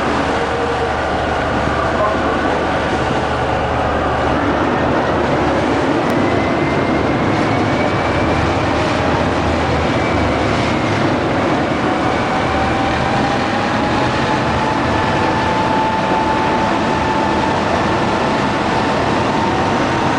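High-speed catamaran cruiser running at speed on the river: a loud, steady rumble and rush of engines and water, with a faint whine that slowly rises in pitch.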